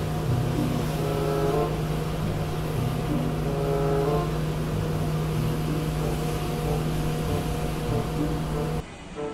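Street sweeper truck running as it drives slowly, a steady engine hum under an even scrubbing hiss from its rotating road brush. The sound cuts off suddenly near the end.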